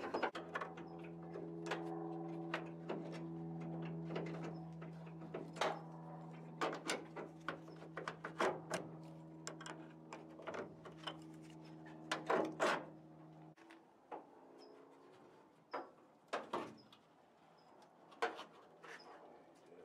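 Scattered knocks and clicks, with a steady machine hum that stops suddenly about two-thirds of the way through. A few faint high chirps near the end.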